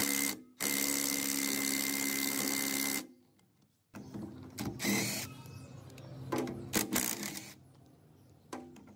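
A small power tool runs steadily for about two and a half seconds and stops. Irregular knocks and clicks of hand work on metal parts follow.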